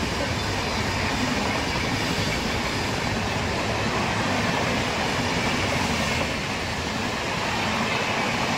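Passenger train coaches running past close by at speed, a steady rush of wheels on the rails and the noise of the moving coaches.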